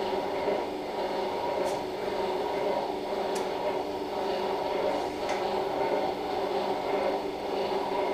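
Steady mechanical hum from operating-room equipment, with a few faint clicks.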